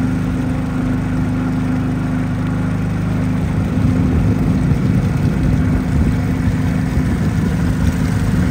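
An engine running steadily with a low, even hum. About three to four seconds in it becomes a little louder and rougher.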